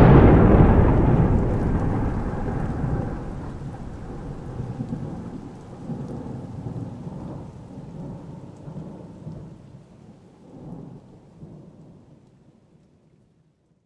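Thunder rolling on after a clap, rumbling in a few swells as it slowly dies away, gone near the end.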